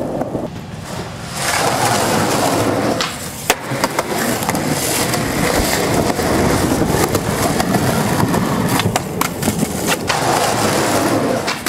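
Skateboard wheels rolling steadily over concrete pavement, with a sharp clack of the board about three seconds in and a few more clacks near the end as the board is popped.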